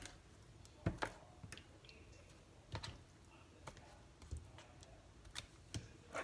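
Scattered light taps and clicks, spaced about a second apart, as raw pork steaks are handled and turned over on a plate.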